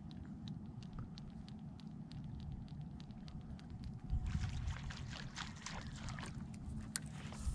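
Low wind rumble on the microphone with light ticking about four times a second, then a sudden louder rush of noise about four seconds in as a fishing rod is cast, the lure splashing down on the water.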